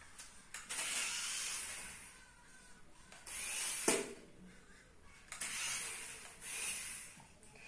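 Toy off-road RC truck's small electric motor and gears whirring in short bursts, on and off as the throttle is worked. A sharp knock near the end of the second burst, about four seconds in, as the truck bumps into a small box.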